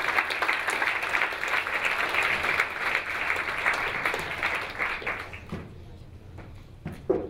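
Audience applauding; the clapping dies away about five seconds in. A few faint knocks follow, with one short, louder bump near the end.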